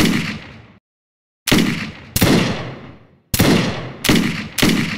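Six pistol gunshots, sudden and unevenly spaced, each followed by a fading echo, used as sound effects in an edited intro.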